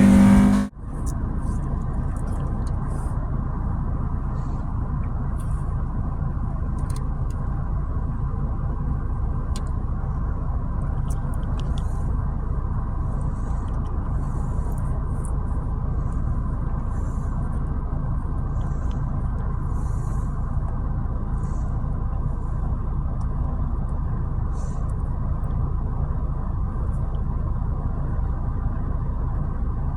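Honda B16 engine with Skunk2 Tuner stage 2 cams idling steadily with a lopey cam idle.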